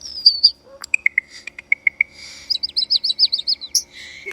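A bird calling in a varied run of sounds: a falling whistle, then a string of short evenly pitched notes, then a fast series of higher repeated chirps, with clicks in between.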